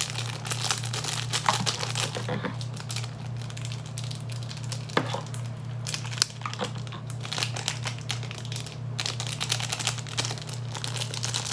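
Plastic-foil seasoning packets of instant ramen crinkling as they are torn open and squeezed out over a bowl, with a few sharp clicks around the middle, over a steady low hum.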